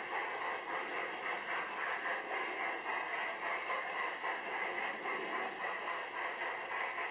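Large-scale garden model train running along its track: a steady rolling, whirring noise with faint clicking.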